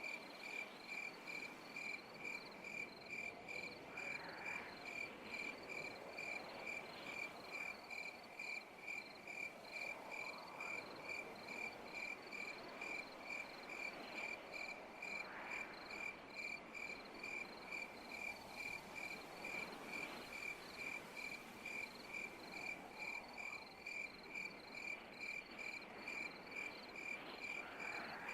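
Night insect ambience: a cricket chirping steadily at a high pitch, about two chirps a second, over a soft background hiss. A few faint rising calls come through lower down now and then.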